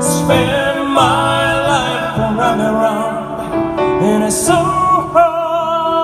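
A live song: a male singer holds long sung notes with vibrato over instrumental accompaniment.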